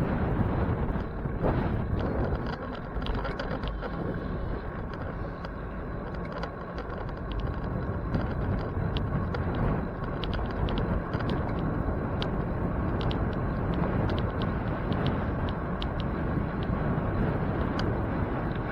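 Riding noise from a moving bicycle: steady wind and road rumble with frequent small clicks and rattles.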